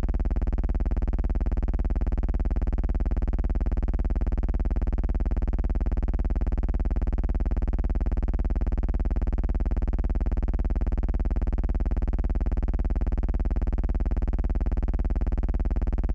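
A steady, unchanging buzzing hum made of an even stack of tones with a fine rapid ticking. It does not change in pitch or level across the whole stretch.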